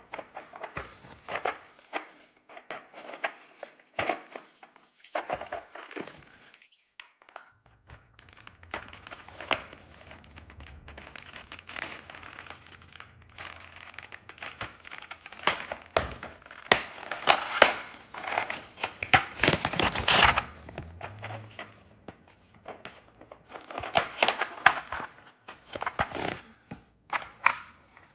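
Typing on a Wooting 60HE keyboard: fast runs of keystroke clacks in bursts with short pauses, densest and loudest a little past halfway.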